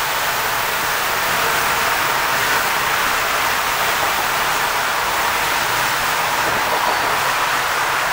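Steady, even rushing noise of the railway surroundings inside a sleeper coach, with no distinct knocks, tones or voices.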